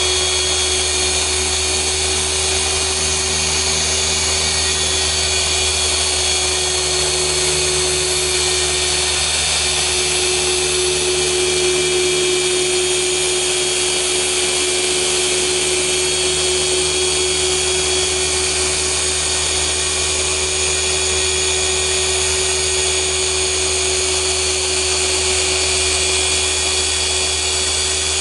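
Rupes LHR 15 dual-action (random orbital) polisher running steadily with a yellow foam pad on car paint, a constant motor whine and hum during paint-correction polishing.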